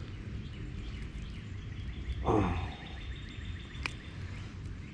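Outdoor ambience at a pond: a steady low wind-like rumble with faint bird chirps. About two seconds in there is a short falling voice-like call, and a single sharp click comes near four seconds.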